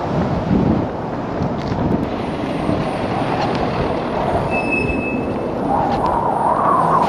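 Steady rush of wind and vehicle noise in a blowing-snow whiteout, with a heavy truck passing close by.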